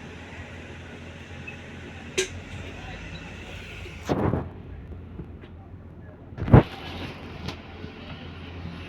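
London New Routemaster bus running with a steady low hum. A sharp knock comes about two seconds in, a longer thud around four seconds, and the loudest thump about six and a half seconds in.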